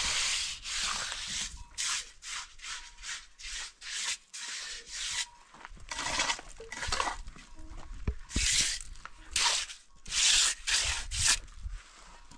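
Mason's trowel scraping and spreading wet cement mortar along the top of a concrete-block wall, in a run of quick strokes with a few longer sweeps.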